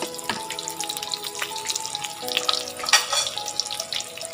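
Diced pork and chopped onion sizzling and crackling in rendered pork fat in a wok, over background music of held notes that change about halfway through.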